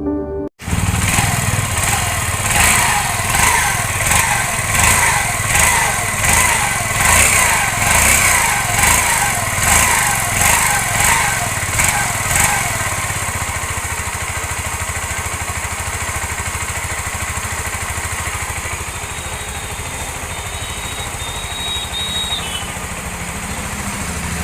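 TVS Star City motorcycle's rebuilt single-cylinder four-stroke engine being blipped on the throttle over and over, about once a second, for roughly twelve seconds. It then settles to a steady idle, running evenly now that the engine noise problem has been fixed.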